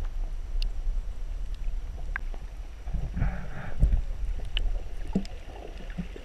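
Muffled underwater sound picked up through a camera's waterproof housing while snorkeling: a steady low rumble of moving water, with a few scattered sharp clicks and a brief burst of hiss about three seconds in.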